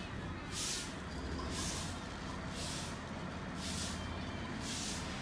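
Plastic sack of lime powder being shaken out into a metal pan, giving a hissing rustle about once a second, over a low steady hum.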